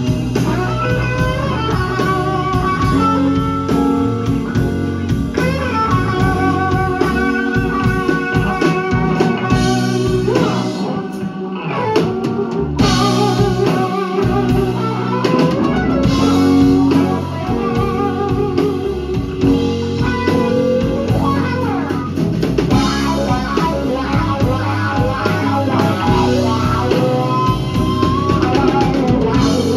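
Live band playing a slow blues: a lead electric guitar solo with wavering vibrato and string bends over a drum kit.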